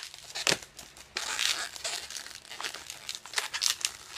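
Black 260 latex twisting balloon being rubbed, rolled and twisted in the hands: a string of short, irregular rubbing noises of the latex.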